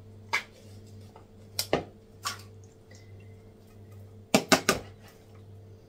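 Scattered light clicks and knocks of a tuna tin being tipped out and handled over a plastic salad bowl, with a cluster of three louder knocks about four and a half seconds in. A steady low hum runs underneath.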